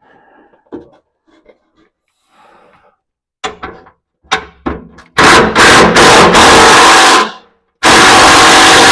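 A few light knocks of tools on metal, then a power impact wrench running loud in short bursts about five seconds in, stopping briefly and starting again near the end, driving the bolts on a new exhaust pipe and muffler.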